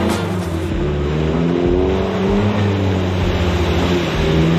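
An off-road 4x4's engine revving up and down as it pushes through a muddy puddle, its pitch rising and falling in slow swells.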